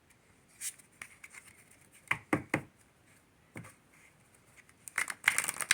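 A deck of Lenormand cards being handled and shuffled by hand: a few separate light taps and flicks, then a quick rapid run of card flicks near the end.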